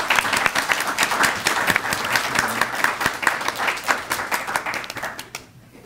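An audience applauding, a dense patter of many hands clapping that fades out near the end.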